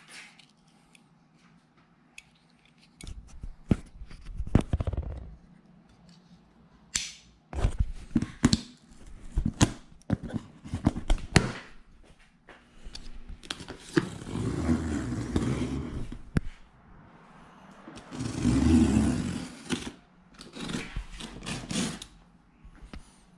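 A shipping package being opened by hand: cardboard and packing material scraping, tearing and rustling, with scattered knocks and clicks and two longer spells of rustling near the middle and about three quarters through.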